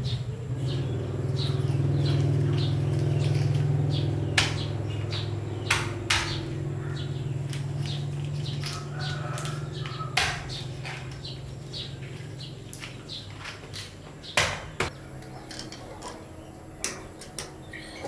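Small birds chirping repeatedly over a steady low hum that slowly fades away, with a few sharp knocks scattered through.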